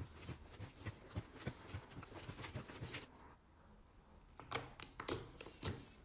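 Slime being squeezed and poked by hand: a run of small sticky clicks and pops. They ease off for about a second past the middle, then come back as a few louder pops near the end.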